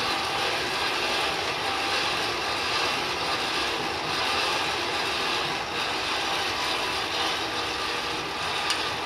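Coal forge fire with its air blower running, a steady rushing noise with no letup.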